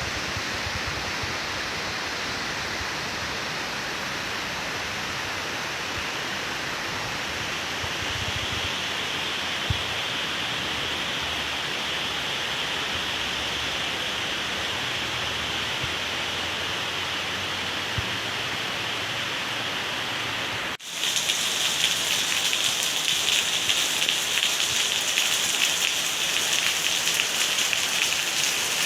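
Heavy rain falling steadily. About two-thirds of the way through, the sound breaks off for an instant and comes back louder, with a denser, sharper patter of drops hitting a surface.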